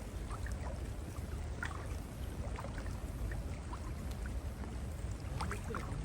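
Creek water sloshing and splashing around legs as someone wades through a shallow freshwater creek, with scattered small splashes and drips.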